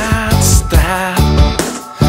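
Background music: a produced song with a bass line and a steady drum beat.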